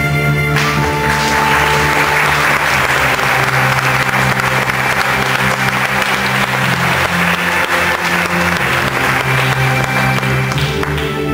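Audience applauding over slow music with sustained tones; the clapping starts about half a second in and stops shortly before the end.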